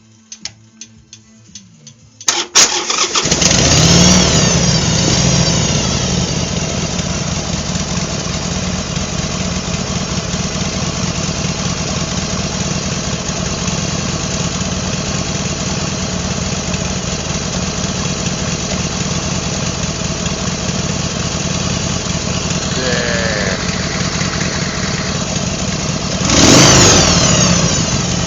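Harley-Davidson Sportster V-twin engine, freshly rebuilt with new pistons and cylinders, starting about two seconds in after a few faint ticks, revving up briefly, then idling steadily with no piston slap. A short rev about a second before the end.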